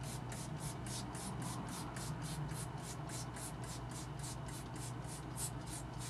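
Hand trigger spray bottle set to a straight stream, squeezed rapidly about four to five times a second, each squirt hissing water onto the fins of a window air conditioner's front coil to flush the dirt through. A steady low hum runs underneath.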